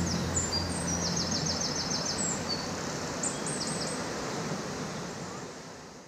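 Steady rushing of a waterfall plunging over a rock ledge into a pool, with a small bird's high chirps and a quick even trill of about eight notes about a second in. The sound fades out near the end.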